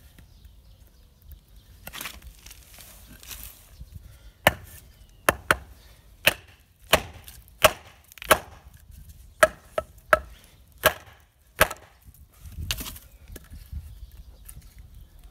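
A Taramundi 445 knife blade chopping into a piece of very dry pine: a run of about a dozen sharp wooden chops, one or two a second, from about four seconds in to about twelve seconds, with a few softer knocks before and after.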